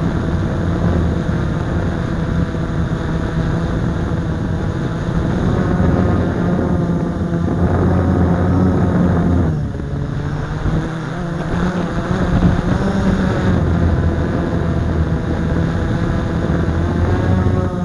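Blade 350 QX quadcopter's four brushless motors and propellers buzzing, heard up close from a camera mounted on the craft. The pitch and loudness dip about ten seconds in, then rise again, and the pitch wavers near the end.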